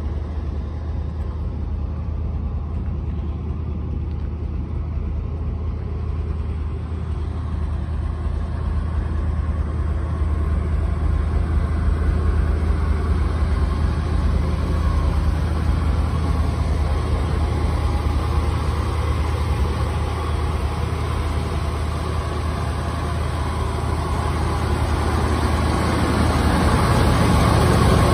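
1980 Ford F-100 pickup's engine idling steadily, getting louder near the end, heard close to the open hood.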